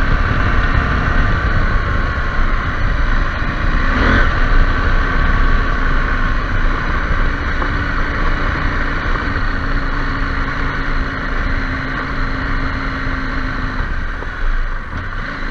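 KTM 790 Adventure R's parallel-twin engine running at a steady road speed on a gravel track, recorded on the camera's own microphone with wind rumble, easing off slightly near the end.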